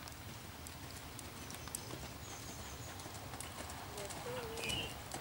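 A showjumping horse cantering over sand arena footing: a steady run of dull hoofbeats.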